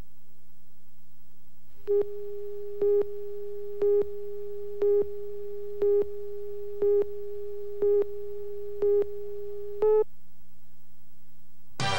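Slate countdown tone on a commercial dub reel: a single mid-pitched beep once a second, nine times, over a fainter steady tone of the same pitch and a low hum, stopping about ten seconds in. Music starts just before the end.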